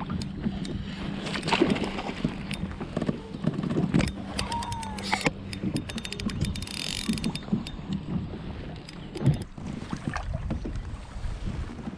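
Sound of a bass being played from a kayak: water sloshing, knocks, and wind on the microphone. About six seconds in there is a quick run of fine clicks from the fishing reel as line is worked.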